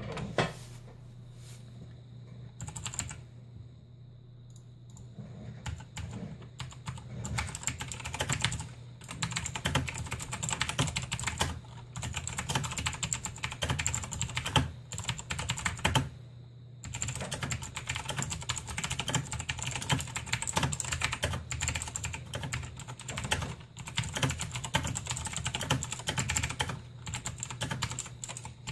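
Razer BlackWidow Chroma mechanical keyboard with clicky Razer Green switches being typed on: a few single keystrokes at first, then fast continuous typing from about six seconds in, with a brief pause a little past the middle.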